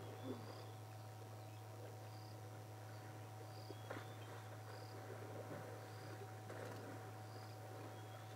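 An insect chirping in short, high, evenly spaced calls, about one a second, over a steady low hum.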